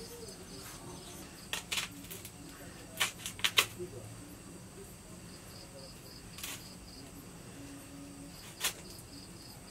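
A few sharp clicks and snaps from hands breaking apart and peeling garlic cloves, the loudest cluster about a third of the way in. Behind them, insects chirp steadily in a repeating high pulse.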